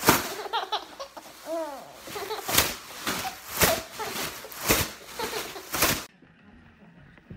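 A baby laughing and squealing in bursts while an adult claps his hands about once a second above the baby's head. Both cut off suddenly about six seconds in.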